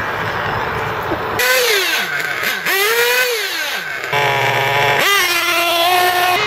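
1:8 nitro RC buggy's small two-stroke glow engine revving in high-pitched whines, the pitch dropping away and climbing back twice, then running steadier with a low buzz and, after an abrupt change about five seconds in, revving up again and holding. It starts with about a second and a half of rushing noise.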